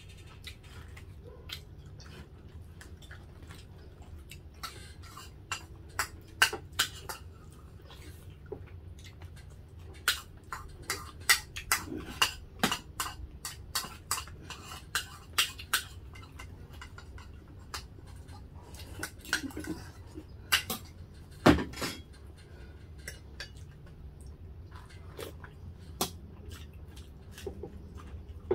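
Metal spoons and forks clinking and scraping against ceramic bowls and plates in irregular clicks, over a steady low background hum. One heavier knock stands out about two-thirds of the way through.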